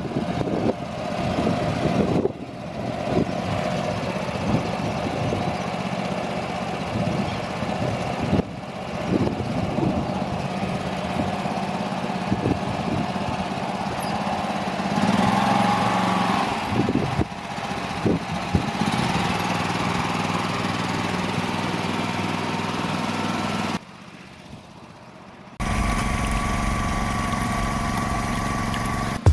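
ISEKI PQZ43 rice transplanter engine running steadily, with occasional knocks from the machine, interrupted by a few abrupt edit cuts.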